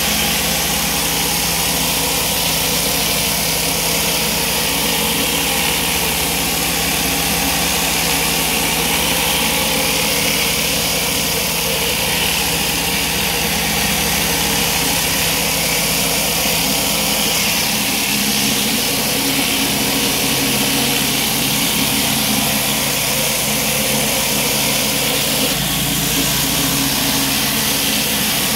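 Pressure washer's engine running steadily, with the hiss of high-pressure water from a flat surface cleaner spraying block paving.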